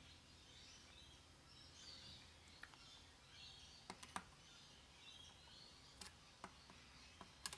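Near silence, with faint birdsong in the background and a few small, sharp clicks of a screwdriver working a carburettor mixture screw.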